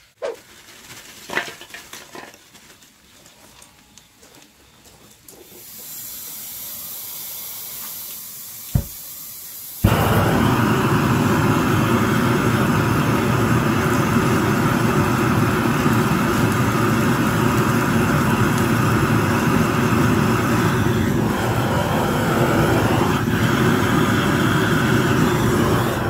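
Long-handled gas torch fed from a gas cylinder: a thin hiss of gas from about six seconds in and a single sharp click near nine seconds, then the flame catches about ten seconds in and burns loudly and steadily, a blowtorch rush that carries on.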